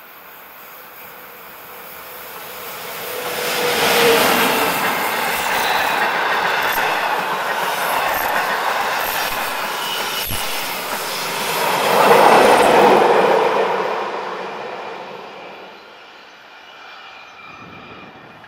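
SBB Re 4/4 II electric locomotive and its passenger coaches passing on curved track, with some wheel squeal on the curve. The sound builds over the first few seconds and is loudest about four seconds in. It swells again around twelve seconds in, then fades away as the train recedes.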